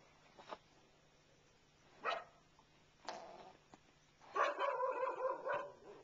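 Animal calls: short, sharp bark-like sounds about half a second, two seconds and three seconds in, then a louder, longer call of over a second with several stacked tones, starting a little past four seconds.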